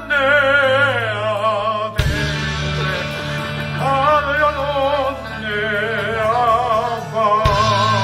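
A live rock band playing, with a singer holding long notes in a wide, wavering vibrato over sustained bass notes. The low notes change with a sharp attack about two seconds in and again near the end.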